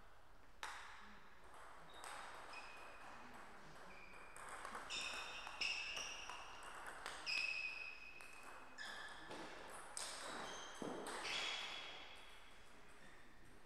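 Table tennis rally: the celluloid-type plastic ball clicks sharply off the rubber bats and the table top in a quick back-and-forth, each hit with a short ringing ping, the exchange ending about 11 seconds in.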